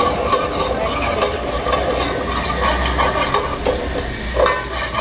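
Steel ladle stirring and scraping a thick spice paste against the sides of a steel pot as it fries and sizzles. The masala is being sautéed to cook out the raw taste of the garlic, in strokes that keep coming.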